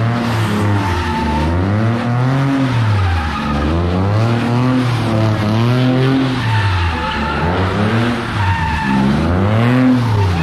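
A car spinning donuts: its engine revs up and down over and over, its pitch rising and falling every second or two, while the tires squeal and skid on the pavement.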